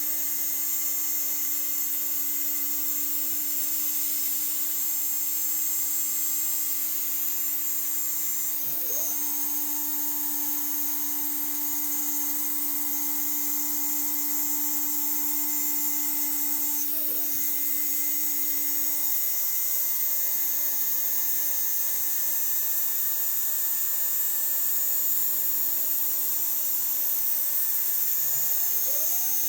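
Spindle of a DIY CNC milling machine running with a steady high whine while cutting a parts tray. About three times a short sweeping whine rises and falls as the machine's axes change speed.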